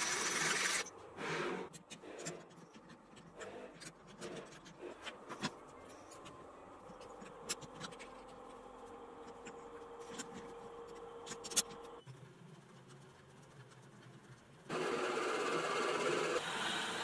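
Twist drill boring into metal on a milling machine. Then scattered clicks and clinks as a lathe's four-jaw chuck is set up by hand. About fifteen seconds in, the lathe starts running with a steady machine noise as a twist drill bores into the spinning workpiece.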